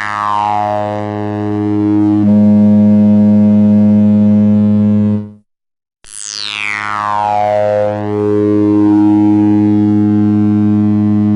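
Analogue synthesizer holding a low droning note while its resonant filter sweeps down from a high whistle into the low harmonics. The note cuts off about five seconds in, and a second note starts about a second later with the same falling resonant sweep and holds.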